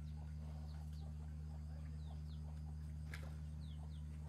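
Small birds chirping in short, quick falling notes over a steady low hum, with one sharp click about three seconds in.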